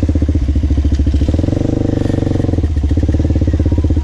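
Off-road bike engine running at low revs with an even pulsing beat, revving up for about a second and a half in the middle, then dropping back.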